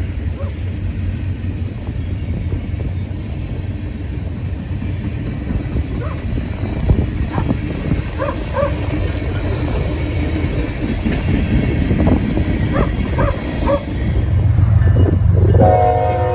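Freight train of hopper cars rolling past close by: a steady rumble with constant clacking of steel wheels over the rails. A few short, high calls are mixed in midway, and a horn-like tone comes in right at the very end.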